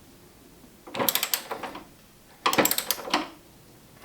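Ratchet of a large click-type torque wrench clicking in two quick runs, about a second in and again past the middle, as it winds down a strut brace bolt.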